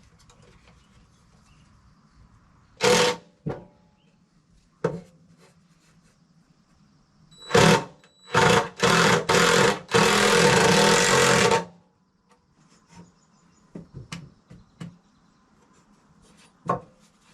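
Handheld power tool working wood, run in short loud bursts with a few knocks between, then held on for a couple of seconds before stopping.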